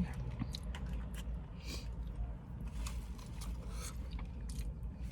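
Close-up eating sounds: poutine being chewed, with scattered small clicks, crunches and scrapes. A steady low rumble runs underneath.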